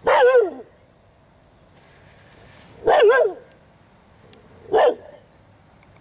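A dog barking three times, each bark about half a second long and a couple of seconds apart, wavering in pitch and dropping at the end.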